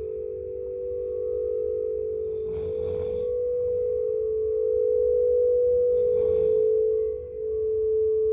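A singing bowl sounding one steady, sustained tone, with a person snoring twice, about three seconds apart, underneath it.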